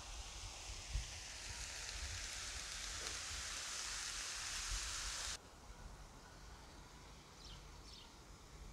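Bell peppers, mushrooms and corn sizzling in a cast-iron grill pan over a fire: a steady hiss that grows slightly louder, then cuts off suddenly about five seconds in. Quieter outdoor background follows, with a few short high chirps near the end.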